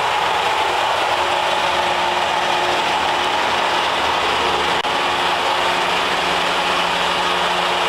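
Mobile transformer-oil purification unit running while it dehydrates oil: its pumps and motors give a steady mechanical whir with a constant hum.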